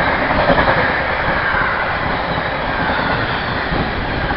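Empty flat wagons of a freight engineering train running past close by: steady loud noise of wheels on the rails, with a faint high ringing tone from the wheels.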